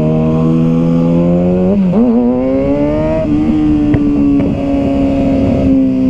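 Sport motorcycle engine accelerating through the gears: its pitch climbs, drops at a gearshift about two seconds in, climbs again, then holds nearly steady at cruising speed.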